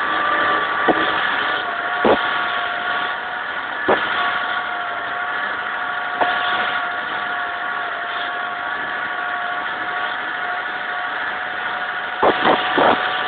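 Foton 504 4x4 tractor's diesel engine running steadily while ploughing, with a constant whine. A few sharp knocks break in, and a quick run of three or four comes near the end.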